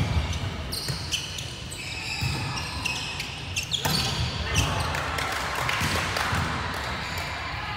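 Indoor volleyball rally on a hardwood gym court: sneakers squeaking, footfalls and sharp smacks of the ball being hit, the loudest about four and a half seconds in, with players' voices echoing in the large hall.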